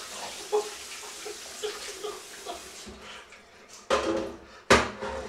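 Water running from a tap into a sink, splashing, until it stops about three seconds in. Then come two loud knocks with some ringing, like dishes or a pot being set down; the second is the louder.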